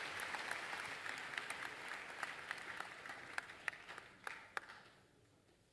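Audience applauding. The clapping thins to a few scattered claps and dies away about five seconds in.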